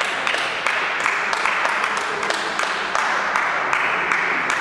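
Irregular sharp clicks of table tennis balls against bats and tables, over a steady hiss of hall noise.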